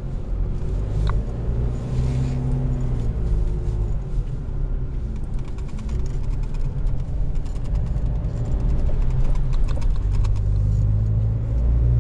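Four-wheel drive driving along a sand beach, heard from inside the cab: a steady low engine drone and tyre rumble, swelling a little about two seconds in and again near the end, with a few light rattles.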